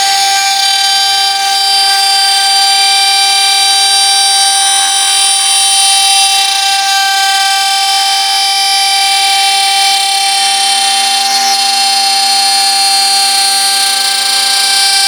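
CNC wood lathe running, giving a loud, steady whine made of several held tones. A lower tone joins about ten seconds in.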